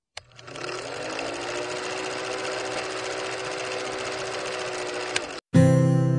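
Film projector sound effect for a countdown leader: a steady clattering run with a motor hum that rises in pitch as it starts, then holds. It cuts off suddenly about five seconds in, and acoustic guitar music begins.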